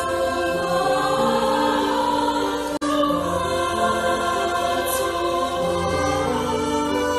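A choir sings a slow hymn in long held chords, with a brief dropout in the sound nearly three seconds in.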